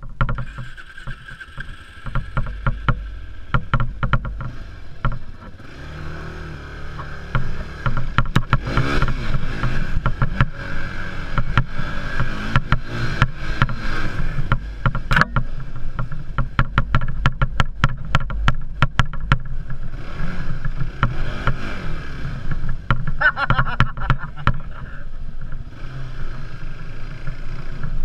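ATV (quad) engine running as the machine is ridden over a dirt trail, its pitch rising and falling as the throttle is worked, with frequent sharp knocks and rattles from bumps.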